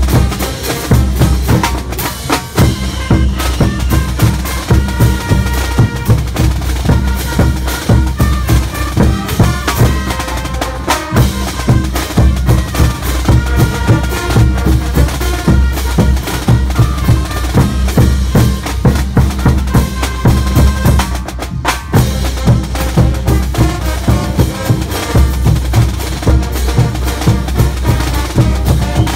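Percussion band playing: large bass drums beaten in a steady driving rhythm with crashing hand cymbals and a snare drum. From about three seconds in, a high melody of held notes plays over the drums.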